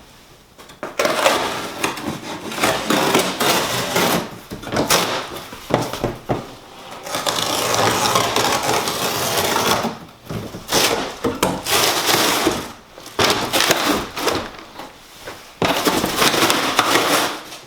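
Cardboard shipping box and its packing being cut, pulled open and handled: irregular scraping, rustling and tearing noise with a few short knocks and brief pauses.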